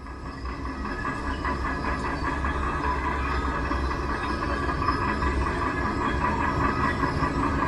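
A machine running steadily, with a whining hum and a low rumble, fading in over about the first second.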